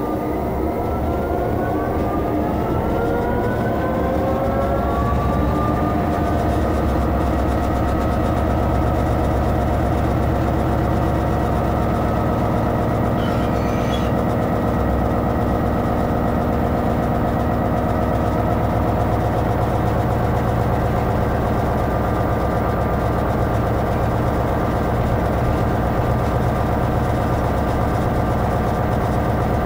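Class 66 locomotive's two-stroke V12 diesel engine heard from inside the cab. Its note rises over the first six seconds or so as power is applied, then holds steady under load.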